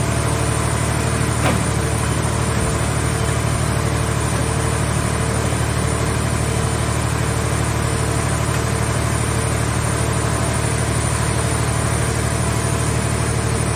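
Hydraulic car-shell baler's power unit running steadily with a low, even drone. A single light knock about one and a half seconds in.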